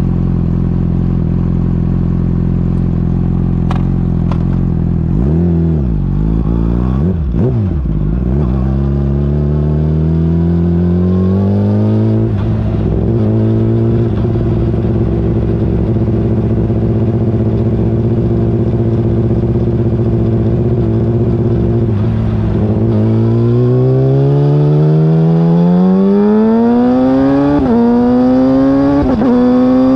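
Yamaha R6's inline-four sport-bike engine through an aftermarket Akrapovic exhaust, idling steadily, then pulling away with rising revs and holding a steady note. Later it climbs in pitch again, with two sudden drops near the end as it shifts up a gear each time.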